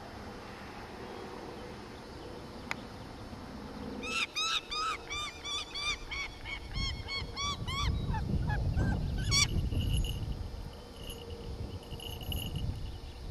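Falcon calling: a fast run of harsh, repeated kak calls, about five a second, lasting some five seconds before breaking off. A low rumble sits under the last part of the calling.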